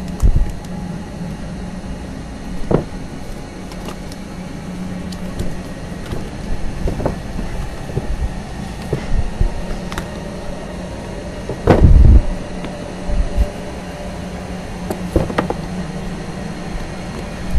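Books being pulled from a shelf and handled, with scattered knocks and one heavy thump about 12 seconds in, over a steady low hum.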